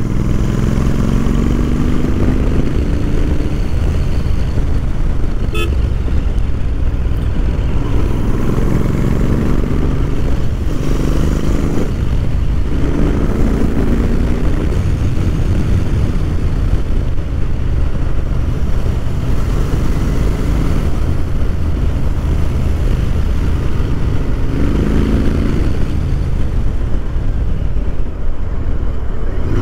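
Royal Enfield Interceptor 650's parallel-twin engine running through aftermarket short slip-on exhausts while the bike is ridden, its note rising in pitch several times as it pulls through the gears. A steady low rumble of wind and road noise runs underneath.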